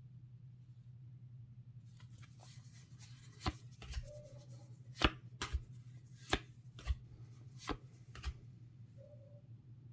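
Trading card starter deck and its packaging being handled by hand: a string of sharp clicks and taps, about a dozen, beginning about two seconds in and ending near the end, over a steady low hum.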